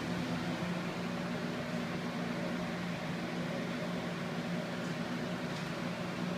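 A 20-inch Lasko box fan running steadily: an even rush of air with a low motor hum.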